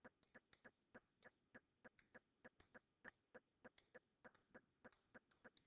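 Faint, rapid small clicks, about four to five a second and unevenly spaced, from a stylus tapping and dragging on a pen tablet while handwriting.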